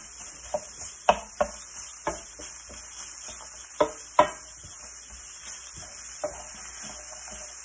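Wooden spatula scraping, knocking and pressing shredded jackfruit in a skillet, crushing the bigger pieces, over a steady sizzle of the jackfruit frying in a little vegetable oil. The knocks come irregularly, the loudest two close together about four seconds in.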